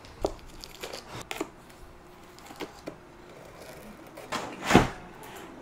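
A box being unpacked by hand: scattered light clicks and taps, then a louder scraping noise lasting about half a second near the end.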